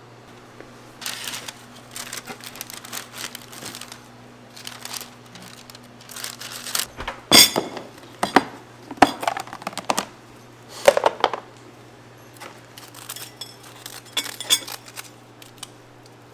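Metal utensils and dishes clattering, clinking and scraping during waffle-making, in irregular knocks that are loudest in the middle, over a steady low hum.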